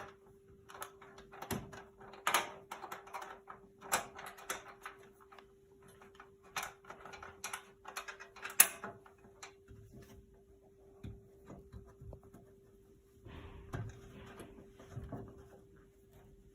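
Irregular clicks, knocks and short scrapes of metal fixings being undone and handled, densest in the first half and sparser later. A steady low electrical hum runs underneath.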